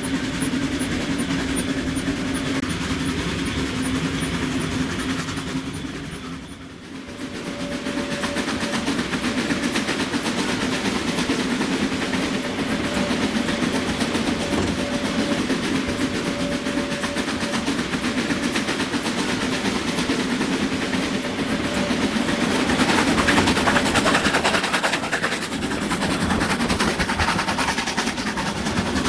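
Harz narrow-gauge railway carriage running along the line, heard from its open end platform: a steady rolling rumble of wheels on rails with a constant droning tone. It fades briefly about seven seconds in, and grows a little louder later on.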